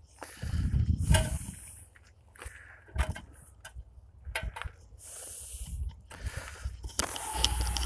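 Irregular scuffs, rustles and knocks as a rope is hauled up off a concrete bridge deck, with a sharp knock about three seconds in and low rumbling near the start and the end.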